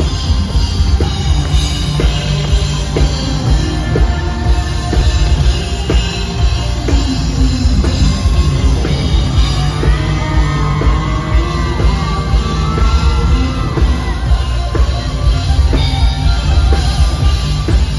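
Live red dirt country rock band playing loud: electric guitars over a heavy drum kit and bass, with a lead electric guitar playing bending notes about ten seconds in.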